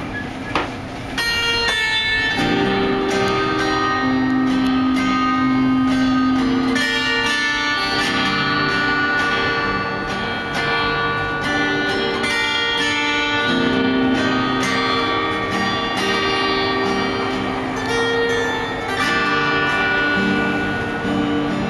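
Acoustic guitar playing the instrumental opening of a song: chords picked and left ringing, with notes held for a second or two.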